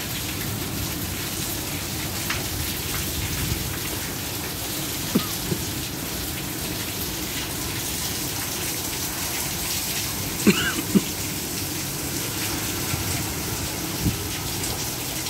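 Heavy rain pouring down steadily, splashing on paving and plants. A few sharp taps stand out, the loudest a pair about ten seconds in.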